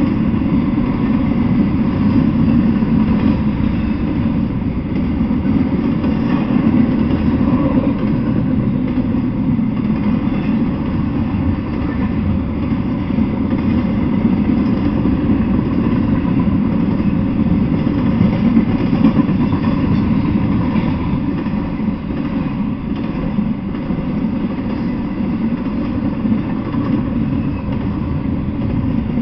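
Double-stack intermodal freight train rolling past at a steady speed: a loud, continuous, low rumble of the cars and wheels on the rails, with no horn or sudden knocks.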